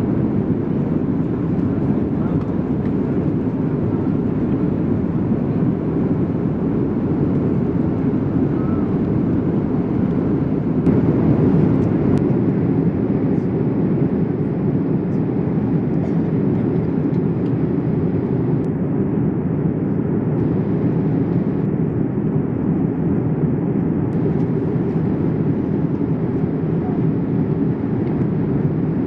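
Steady cabin noise inside a Boeing 787-8 with Rolls-Royce Trent 1000 engines: an even, low rush of engine and airflow noise, swelling slightly about eleven seconds in.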